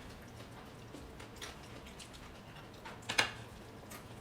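Scattered light clicks and crunches of eating at the table, with one louder click about three seconds in.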